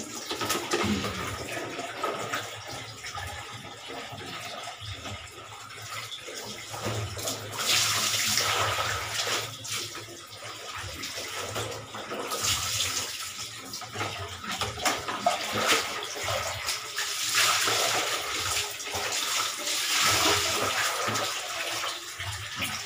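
Water sloshing and splashing as laundry gets its final rinse by hand in a plastic basin, with water scooped and poured from a plastic dipper. The splashing comes in uneven spells, loudest about eight, twelve and seventeen to twenty-one seconds in, and ends with a wet garment lifted out dripping.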